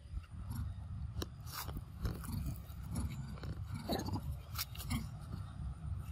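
Scattered crackles, clicks and scrapes of movement over dry leaf litter, over a steady low rumble.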